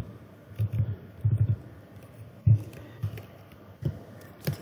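Computer keyboard keystrokes in short irregular clusters of dull taps, typing a product code into a spreadsheet.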